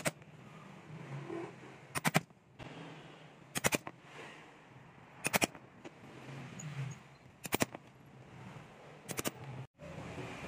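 Mallet blows on a stitching chisel punching stitch holes through cowhide on a wooden block: quick groups of three or four sharp strikes, repeated about six times with a pause of a second or two between groups.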